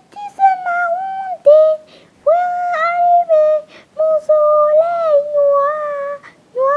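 A high voice singing a slow melody in long, held notes, phrase after phrase, with short breaths between them.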